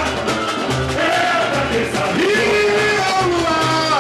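Live samba-enredo: several male voices singing into microphones over a band with a steady, evenly repeating low percussion beat.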